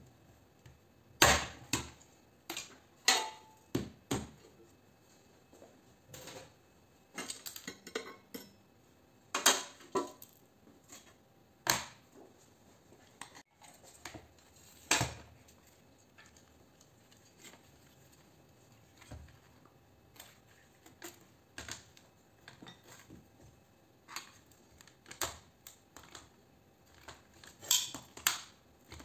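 Hand tools clinking and knocking on a metal light fitting as its aluminium reflector and ballast gear are pried apart: irregular sharp clicks and clanks, a few much louder than the rest.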